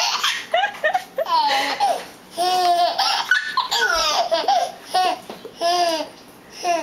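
A toddler laughing in a high, gleeful voice, in about five bursts separated by short breaths.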